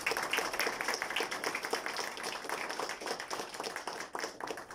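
Audience applauding: many hands clapping densely, thinning out and fading near the end.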